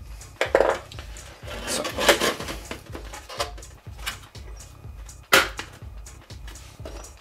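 Sheet-metal case of a network video recorder being handled and turned over on a wooden table: sharp knocks and clatter, the loudest about half a second, two seconds and five and a half seconds in, over background music with a steady beat.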